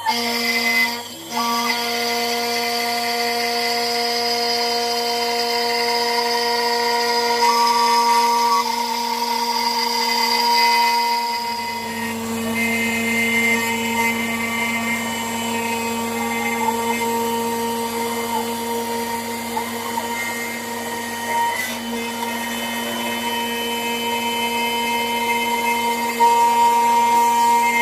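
CNC router spindle milling a metal gun part: a steady high whine made of several tones, with the cutting noise of the bit in the metal. The tone pattern shifts about twelve seconds in as the cut changes.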